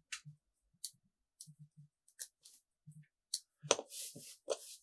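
Scattered small clicks and scrapes of 3D-printed plastic lens-holder parts being handled and screwed together, then a brief rustle near the end as the piece is set down on the paper-covered desk.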